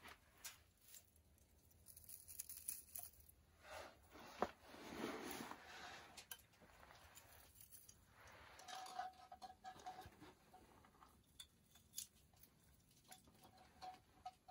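Faint rustling and scattered light clicks of ornaments being handled and hung on the plastic branches of a small artificial Christmas tree.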